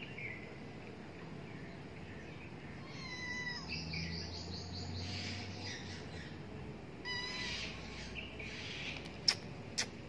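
Kitten mewing, a short call about three seconds in and another about seven seconds in, with high rapid chirping alongside. A few sharp clicks near the end.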